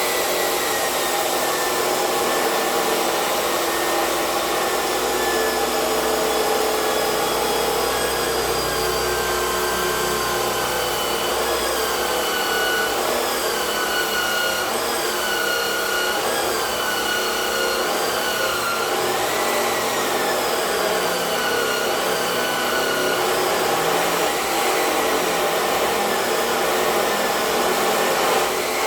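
Steady whirring hiss of a motor-driven tool, its whine wavering up and down in pitch for a stretch in the middle.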